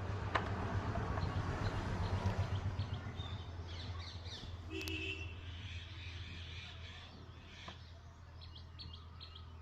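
Birds chirping, with a short squawk about five seconds in and a run of quick, evenly spaced chirps near the end, over a steady low hum. The first few seconds are louder, with a noisy rush.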